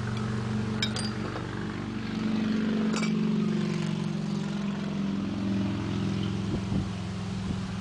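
A steady engine hum from an unseen motor that swells about two seconds in, with a couple of light metal clinks as sheet-metal brackets are handled.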